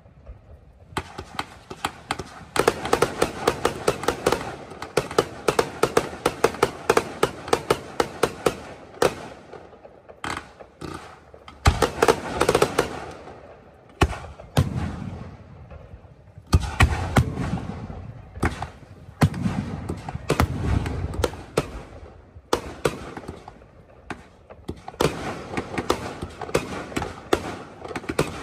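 Aerial fireworks bursting overhead: dense volleys of sharp crackling reports mixed with deeper booms, coming in waves with short lulls between them.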